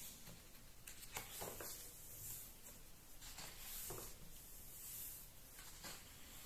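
Faint rustle of a slightly glossy paper page being turned by hand in a hardcover comic album, with a few soft touches of the hand on the paper.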